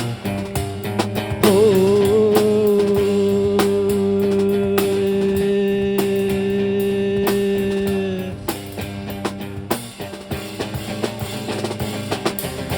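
Drum kit and guitar playing an instrumental passage, with bass drum, snare and rimshot strokes throughout. A long held note, bent at its start, rings from about one and a half seconds in until about eight seconds.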